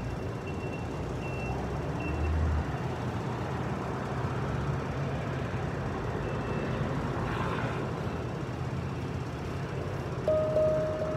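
Steady street traffic noise with a low rumble, while faint handpan notes fade out in the first couple of seconds. About ten seconds in, a PanStream handpan note is struck and rings clearly.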